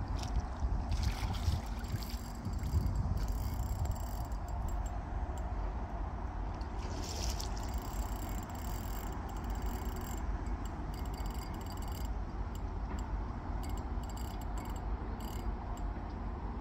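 Wind buffeting the microphone over water lapping at the lake's edge, with a few faint, irregular ticks from the carp reel's drag while a hooked fish is being played.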